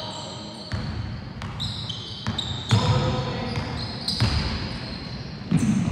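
A basketball bouncing on a hardwood gym floor, several thumps at uneven intervals, with rubber sneakers squeaking briefly on the court between them.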